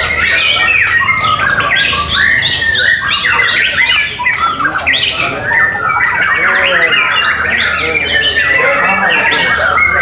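Many white-rumped shamas (murai batu) singing at once: a dense, overlapping chorus of rapid whistles, sweeps and chatters with no pause.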